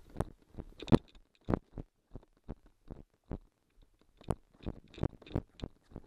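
Footsteps and handling knocks: a run of short, dull thuds, two to three a second, with a pause a little past the middle.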